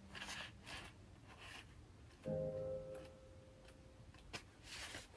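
Faint background piano music, with a chord struck about two seconds in that slowly fades, mixed with the soft rustle of book pages being leafed through.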